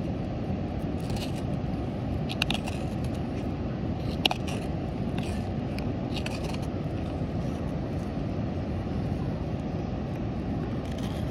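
Hook knife cutting into the bowl of a butternut spoon: about half a dozen short scraping cuts, spread out, over a steady low rushing noise.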